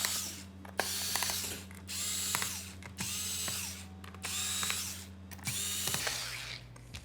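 Small electric screwdriver whirring in about six short runs, each under a second, backing out the bottom-cover screws of a laptop.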